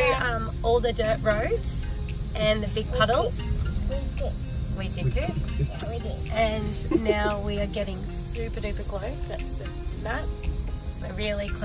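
Cicadas droning in a loud, unbroken high-pitched chorus, over the low rumble of a car moving slowly on a dirt track.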